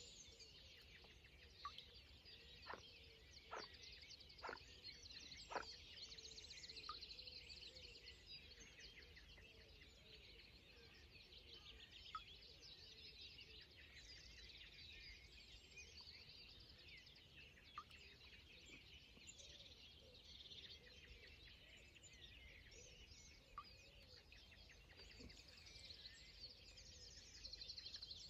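Faint chorus of small birds chirping and trilling without a break, with a few sharp clicks in the first several seconds.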